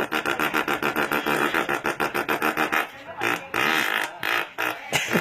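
A boy imitating a motorcycle engine with his mouth: a fast, buzzing pulse held for about three seconds, then a shorter burst after a brief break.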